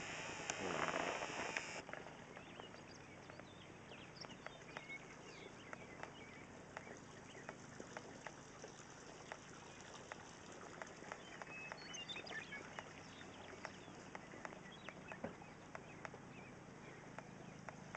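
Faint pasture sound around Jersey cows and calves: scattered soft clicks and knocks of hooves shifting on dry dirt, with a few short high chirps of small birds. A louder rushing noise fills the first two seconds.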